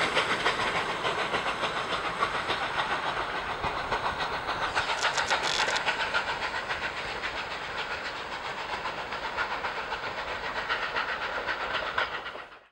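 Ol49-class steam locomotive pulling away with a passenger train, its exhaust beating in a quick, even rhythm. The sound slowly fades as the train draws off, then cuts off right at the end.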